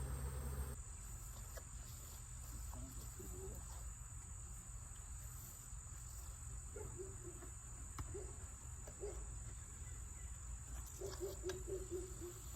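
Steady high-pitched trill of crickets, with short buzzes of honey bees flying past around the open hive and a low rumble underneath.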